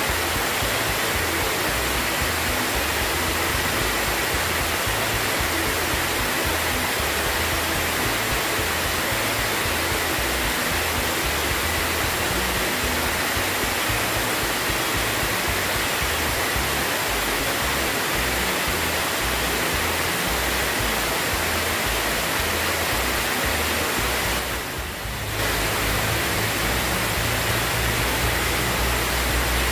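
Water falling over a concrete weir spillway into a deep pool: a steady, loud rush with no let-up, briefly quieter about 25 seconds in.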